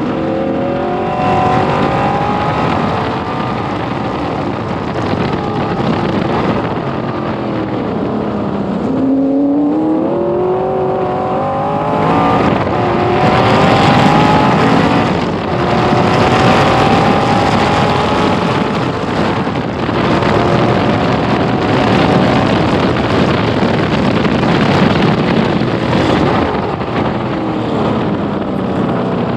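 V8 engine of a 1966 Corvette B Production race car at racing speed, heard from the cockpit. The revs climb and fall through the gears: about nine seconds in they drop low for a corner and then climb again, with further shifts later on.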